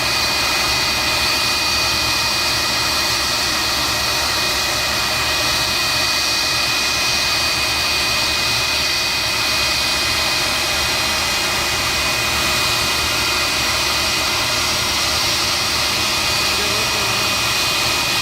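Jet turbine running steadily, a constant rush of noise with two steady high-pitched whines in it, typical of an airliner's turbine on the ground.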